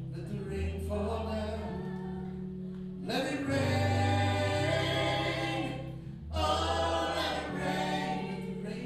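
Live band playing: bass guitar and electric and acoustic guitars under a group of singers holding long sung lines, the voices swelling loudest from about three seconds in.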